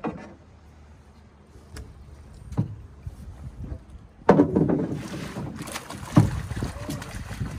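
Hooked steelhead thrashing and splashing at the surface as it is scooped into a landing net, starting about four seconds in, with one sharp splash about two seconds later. A couple of light knocks come before it.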